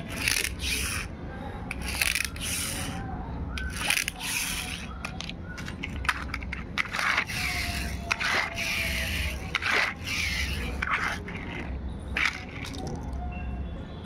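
Plastic toys scraping and clicking on a rough concrete floor in a string of short, irregular scrapes as they are handled and pushed about.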